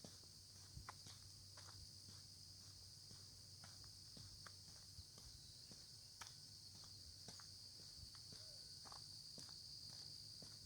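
Faint steady chorus of insects, a continuous high-pitched hum, with a walker's footsteps sounding as soft irregular ticks underneath.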